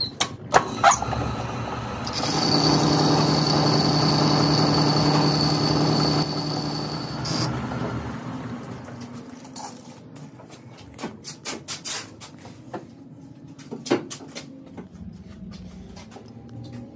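Metal lathe turning a steel ring in its chuck, a tool cutting it: a steady machine hum with a high, even cutting tone and hiss from about two seconds in, stopping suddenly around seven seconds. After that the lathe runs on more quietly, with scattered clicks and clinks.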